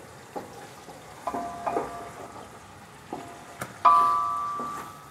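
Aluminium cooking pot ringing as a wooden spatula knocks against it while stirring, about six knocks, the loudest near the end ringing on and fading for about a second. A faint sizzle of sliced onions frying in ghee lies underneath.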